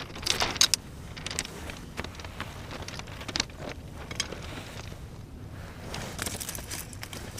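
Scattered clicks and light knocks of cooking gear being handled on shingle, a cluster of them about six seconds in, over a steady faint hiss.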